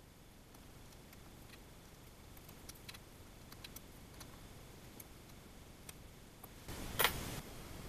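Faint, scattered small metallic clicks of a hex key and bolts being handled on an aluminium stepper-motor mounting plate. A single louder knock comes about seven seconds in.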